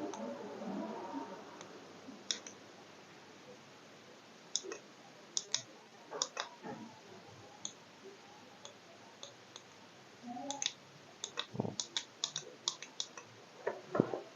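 Small tactile buttons on a digital thermostat controller module clicking as they are pressed, faint and irregular, while its switch-on temperature is being set. The clicks come thicker near the end, with a couple of duller knocks among them.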